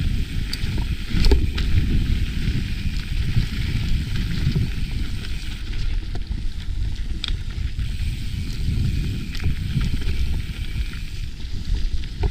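Mountain bike descending a dirt singletrack: a steady low rumble of tyres on the trail mixed with wind buffeting the mic, broken by scattered sharp clicks and rattles from the bike.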